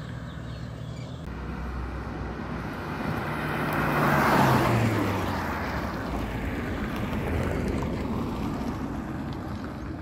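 A Maruti Suzuki Swift and a Tata Tiago racing past at speed: engine and tyre noise swells to a peak about four and a half seconds in, the engine note dropping in pitch as they go by, then fades away.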